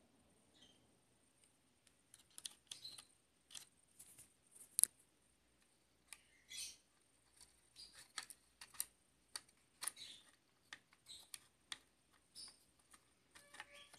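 Hands handling parts inside an opened MacBook Pro: scattered light clicks, taps and short scrapes on metal and plastic, irregular, over a faint steady high whine.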